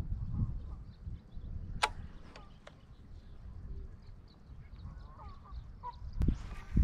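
Wind rumbling on the microphone, with a sharp click about two seconds in and two lighter ones after it, faint bird chirps, and a couple of low thumps near the end.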